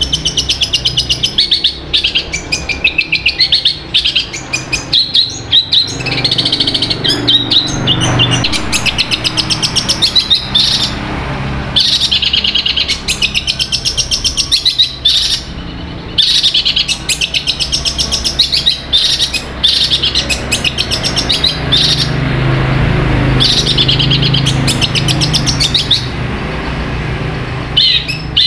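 Caged long-tailed shrike (cendet) singing: high, fast chattering runs of rapidly repeated notes, in phrases of one to a few seconds broken by short pauses.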